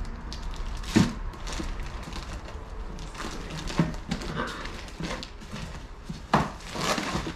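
Clear plastic packaging crinkling and rustling as a boxed oil pan is unwrapped, with a few sharp knocks, the loudest about a second in and another about six seconds in.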